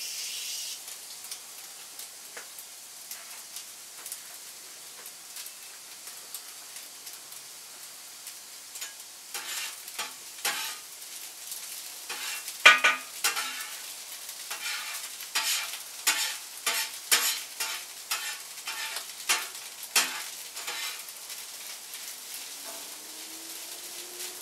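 Steady sizzle of food frying on a hot cooking surface. About nine seconds in, a metal utensil starts clattering and scraping against it in quick strokes, as food is stirred. This lasts about twelve seconds.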